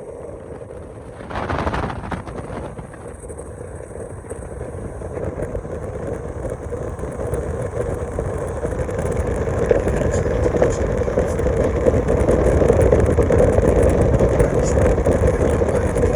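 Donzi speedboat's engine running under way, growing steadily louder as the boat gathers speed. A sudden rush of noise comes about a second and a half in.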